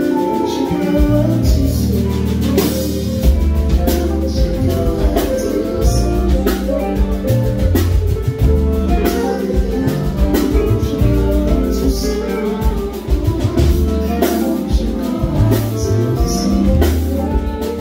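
Live band music: drum kit and bass driving a steady beat, with a singer's voice over it.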